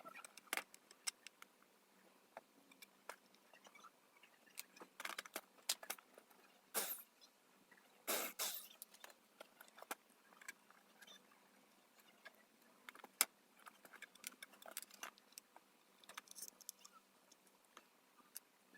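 Faint handling noise: scattered sharp clicks and light taps, with two short, louder rushes of scraping noise about seven and eight seconds in.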